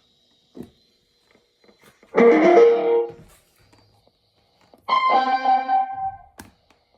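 Two strummed guitar chords, one about two seconds in and one near five seconds, each ringing out for about a second, heard through the small speaker of a 1964 General Electric C-403D vacuum tube AM clock radio.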